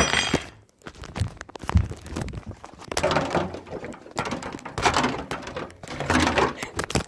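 Handling noise from the phone being moved about: rough rubbing and rustling against the microphone, broken by irregular knocks and thumps.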